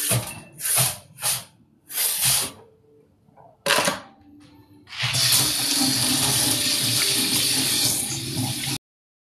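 Water from a kitchen tap splashing into a sink in several short spurts as bowls are rinsed, then running steadily for nearly four seconds before cutting off suddenly.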